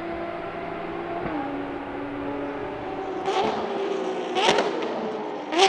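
Ferrari FXX K Evo's V12 engine running at a steady high pitch that steps down about a second in. From about three seconds in come quick throttle blips with three sharp exhaust bangs, the last the loudest, typical of downshifting under braking.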